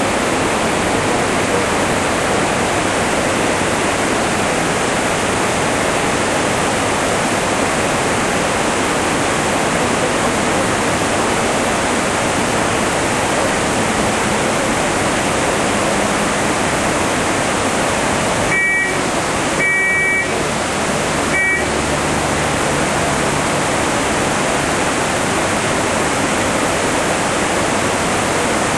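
Steady rushing of a fast, swollen river in flood. Three short high beeps sound close together about two-thirds of the way through.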